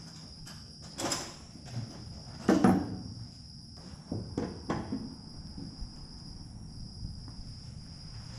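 Crickets chirring steadily, with a few scattered clicks and knocks of a screwdriver and small mount parts being handled while a screw is driven into the wing; the loudest knock comes about two and a half seconds in.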